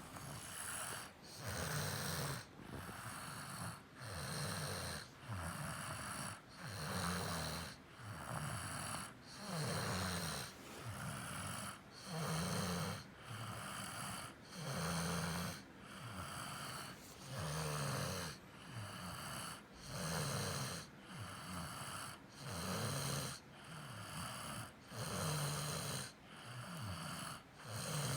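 A little girl snoring in her sleep, steady and rhythmic: a louder snore every two to three seconds, with a softer breath sound between.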